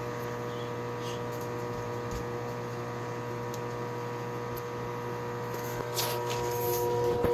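Microwave oven running with a steady electrical hum, a few faint ticks about six seconds in.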